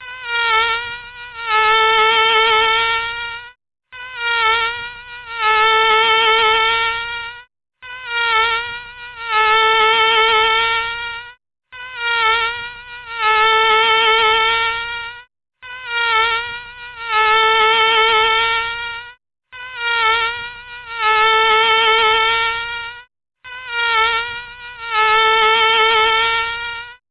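Mosquito whine: a steady, high, thin buzz with many overtones. It repeats as a loop of stretches about four seconds long, each broken off by a brief silence, seven times over.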